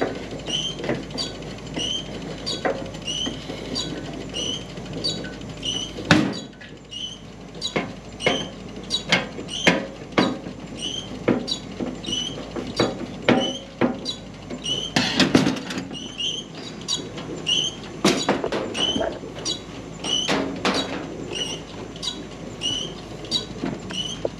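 Irregular clicks, knocks and rattles of hand-tool work on a Speed Queen commercial dryer's control panel as a screw is driven to fasten the new push-to-start button, busiest near the middle and again a little later. Under it a small high chirp repeats steadily, about three every two seconds.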